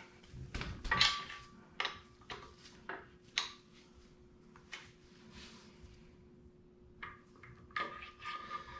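Hand wrench clinking on metal while the oil pump is unbolted from a small-block Chevy V8 block: scattered sharp metallic clicks and clanks, with a lull in the middle and a faint steady hum underneath.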